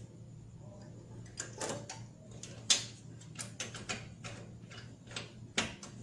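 Irregular sharp clicks and knocks of parts and hand tools being handled while components are mounted in an electrical control panel, the loudest just under three seconds in. A low steady hum runs underneath.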